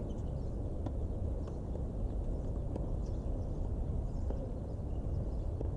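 Steady low rumble of wind buffeting the microphone, with a few faint, irregular knocks of a tennis ball bouncing on the hard court.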